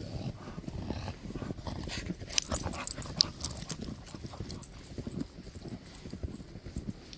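Footsteps crunching through fresh snow at a walking pace, with a cluster of sharp clicks about halfway through.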